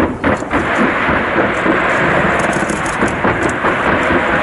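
Fireworks display going off: a continuous mass of crackling and rumbling bursts, with two sharp bangs in the first half-second.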